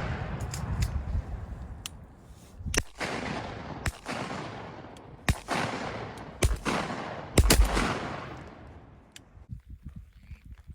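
Shotguns fired at ducks: about six shots in quick succession over five seconds, each followed by a long rolling echo that fades away.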